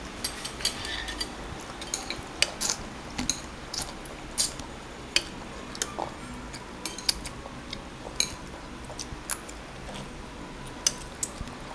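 Spoon and fork clicking and scraping against a child's bowl of spaghetti in irregular sharp taps, with the soft slurping of noodles being sucked up.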